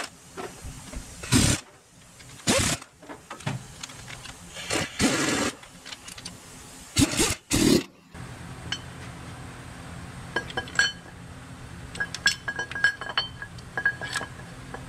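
Short bursts of an air ratchet running in the transfer-case bolts, then light metallic clinks of bolts and tools over a steady low hum.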